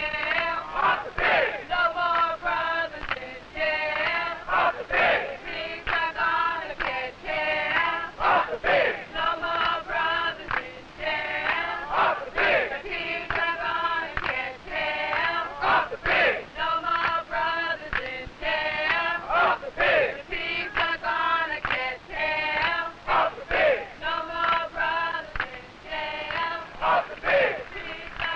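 A crowd of men and women chanting in unison to a steady rhythm, with a strong accent about every two seconds.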